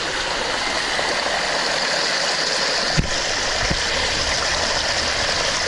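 Steady rush of water running down a water slide, with one sharp knock about three seconds in.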